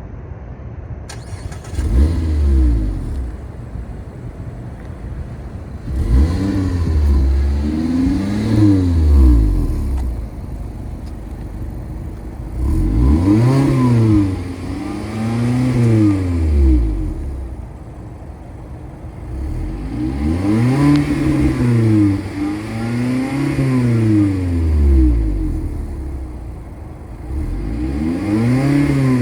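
Mazda MX-5 Miata four-cylinder engine revved through a Flyin' Miata active exhaust while standing: idling, then blipped up and back down, in groups of two or three revs with idle in between.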